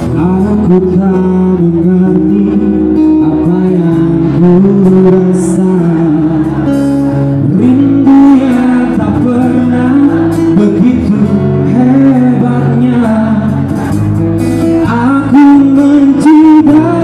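A man singing a pop ballad with guitar accompaniment, a little louder near the end.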